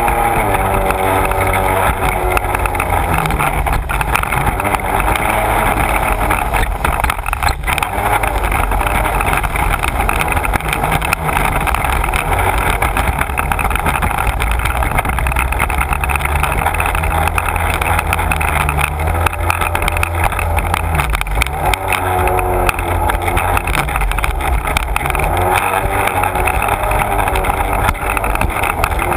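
Sea-Doo personal watercraft engine running at speed, with rushing water and spray against the hull. The engine pitch drops just after the start, and swings up and down again about two-thirds of the way through and near the end as the throttle changes.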